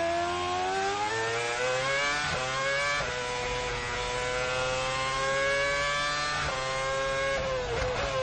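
Onboard sound of a Brawn BGP 001's Mercedes 2.4-litre V8 Formula One engine accelerating hard. Its pitch rises and drops at two quick upshifts, about two and three seconds in, then climbs steadily. Near the end it falls away under braking and downshifts.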